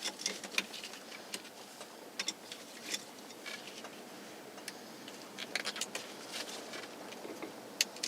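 Irregular light clicks and taps of small metal and plastic parts being handled, as screws and a turn signal switch are worked into a truck's steering column.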